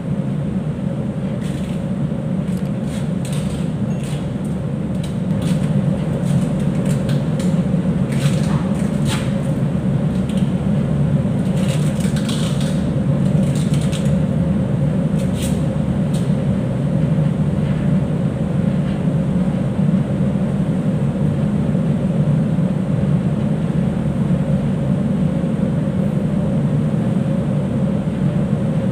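Steady low drone of a ship's machinery and ventilation on an enclosed mooring deck, with a faint steady hum above it. Over the first half come scattered short rustles and clicks as the strands of a thick 8-strand mooring rope and the splicing tools are handled, then they die away.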